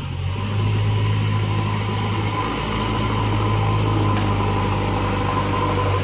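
JCB 3DX backhoe loader's diesel engine running steadily, a low even drone that gets louder just after the start and holds.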